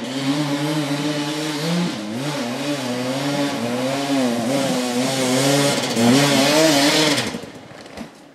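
Enduro motorcycle engine revving up and down in repeated surges as the rider works the throttle off-road, its pitch rising and falling every second or so. The engine sound falls away sharply about seven seconds in.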